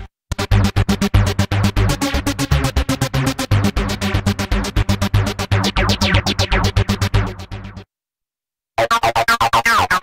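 Tone2 Gladiator software synthesizer playing a preset: a fast, evenly pulsing electronic sequence with falling pitch sweeps toward its end. It stops about 8 seconds in, and after a second of silence the next preset starts with similar rapid pulses.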